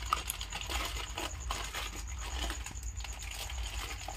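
Plastic vermicelli packet crinkling and tearing as it is pulled open by hand: a string of irregular small crackles and rustles.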